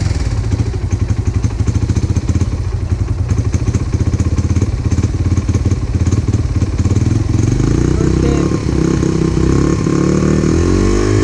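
2002 Honda XR100's single-cylinder four-stroke engine running with the choke on, idling way too high. The firing is rough and choppy for the first several seconds, then the note smooths out and its pitch wavers near the end.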